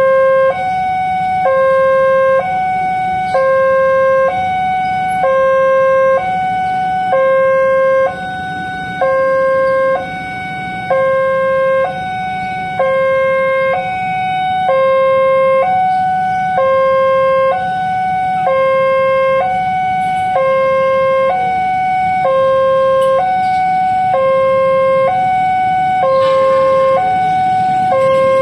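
Railway level-crossing warning alarm sounding continuously, a two-tone hi-lo signal switching between a lower and a higher tone about once a second, warning that a train is approaching the crossing.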